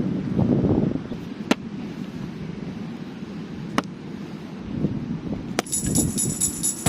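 Wind rumbling on the microphone, with three sharp cracks a second or two apart.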